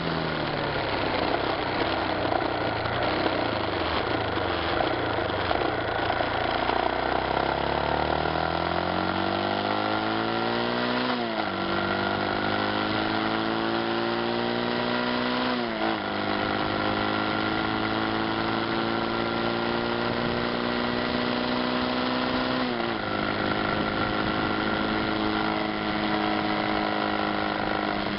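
Yamaha Fazer motorcycle engine on the move, with wind noise on the bike-mounted camera. The engine note falls as the bike slows over the first several seconds, then climbs through the gears with upshifts about eleven, sixteen and twenty-three seconds in.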